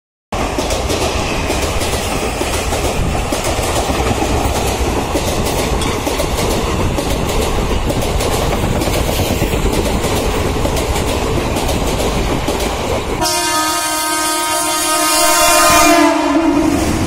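A passenger train passing, a steady rumble with the clatter of wheels over the rails. Near the end a train horn sounds for about three seconds, the loudest part, dipping slightly in pitch as it ends.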